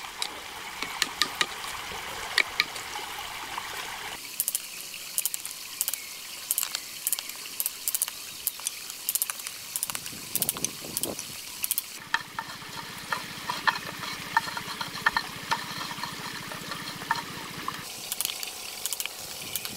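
Hand tools working a green bamboo tube: a knife blade tapped along the bamboo with a wooden stick to split it, giving a string of light, irregular taps and cracks. The background changes abruptly a few times.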